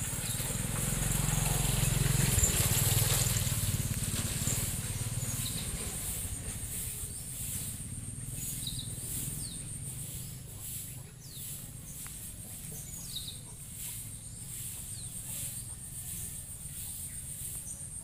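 Outdoor ambience led by a steady, high-pitched insect drone, with a scattering of short, faint bird chirps in the middle. A low rumble is loudest in the first few seconds, then fades.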